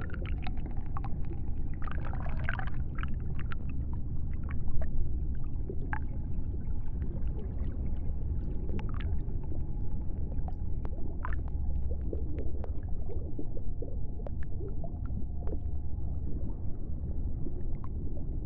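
Underwater ambience picked up by a submerged camera: a low steady rumble with scattered sharp clicks, and a brief bubbly patch about two seconds in.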